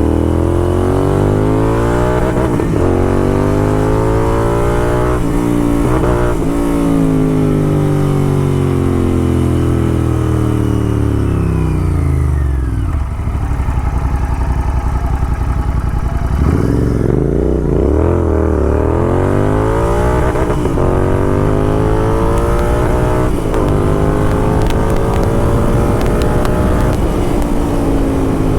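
Royal Enfield Continental GT 650 parallel-twin with a loud aftermarket Red Rooster exhaust, accelerating hard through the gears. The revs climb and drop at each gear change. About halfway through the revs fall away and the engine runs low for a few seconds, then it pulls up through the gears again.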